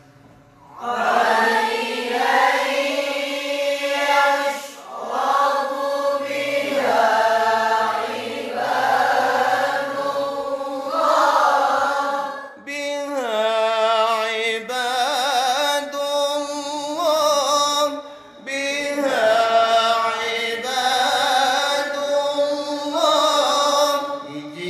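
A man reciting the Quran in the melodic mujawwad style: long, ornamented sung phrases with wavering turns, separated by short breaths.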